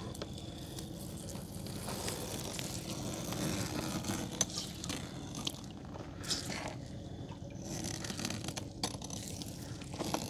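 Gillnet being hauled by hand into a small boat: the wet mesh scrapes and rustles along the hull, with a few sharp knocks.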